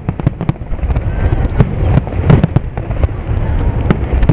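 Fireworks display: aerial shells bursting in quick succession, many sharp bangs and pops over a continuous low rumble of overlapping booms.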